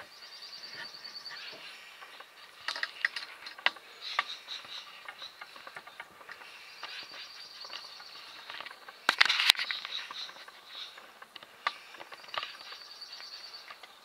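Red-breasted sapsucker pecking at its nest hole in a tree trunk: scattered sharp taps, with a louder noisy burst about nine seconds in. A high, fast trill repeats three times in the background.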